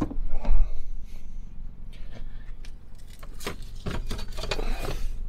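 A car door being opened and things handled inside the car: scattered clicks and knocks with rustling, over a low steady hum.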